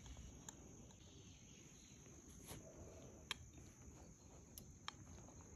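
Faint outdoor background with a steady high insect drone, broken by three light clinks of metal serving utensils against ceramic plates as food is dished out.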